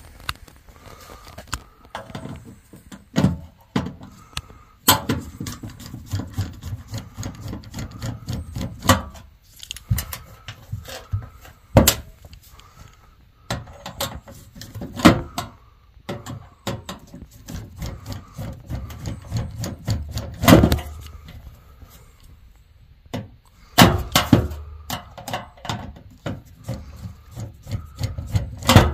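Hand-work noises from tools and metal parts being handled: a run of irregular knocks, clicks and rubbing, broken by several sharp louder bangs.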